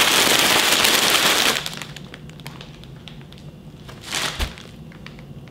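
Plastic chip bags crinkling and crunching in a loud burst for about the first second and a half, then quieter scattered rustles and clicks, with one more brief rustle about four seconds in.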